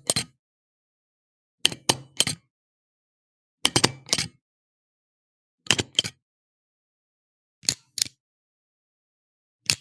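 Stapler pressed down again and again, about once every two seconds, each press a quick cluster of two or three sharp clicks.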